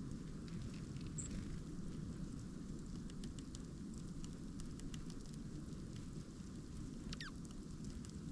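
Small birds at a feeder: a single high chirp about a second in and a short call sliding down in pitch about seven seconds in, with scattered light ticks throughout. Under them runs a steady low rumble.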